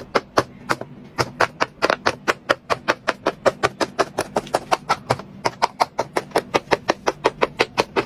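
Large silicone pop-it fidget toy being popped with both hands: a quick, even run of popping clicks, about five a second.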